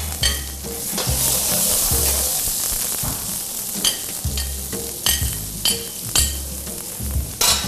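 Diced red peppers dropping into a hot oiled wok of carrots and sizzling, the hiss swelling about a second in and then easing. Several sharp metal clinks from the spoon scraping them off the plate and working the wok.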